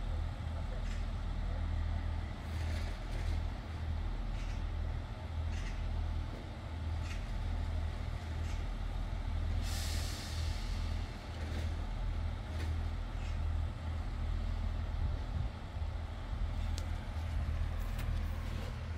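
Pacer train's diesel engine running in a steady low rumble, with a short hiss of air from the brakes about halfway through.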